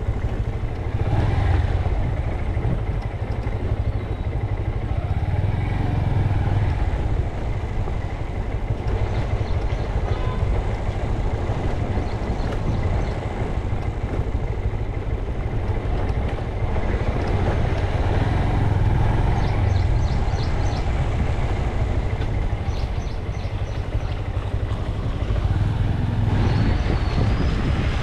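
Motorcycle running steadily on the road: a continuous engine and road noise, heaviest in the low rumble.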